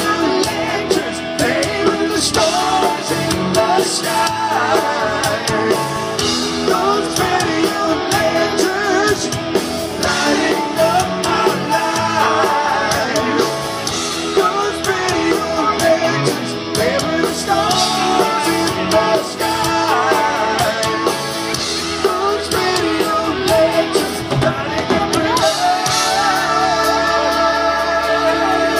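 Live rock band playing a song, with a male lead vocal singing over electric guitar, heard from far back in an open-air audience.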